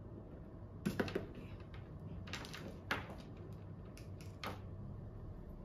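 Scattered clicks and light knocks of a facial machine's ultrasound handpiece and cable being handled and unplugged, in a few short clusters.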